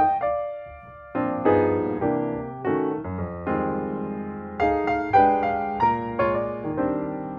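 Background piano music: chords struck and left to die away, with a short lull about a second in.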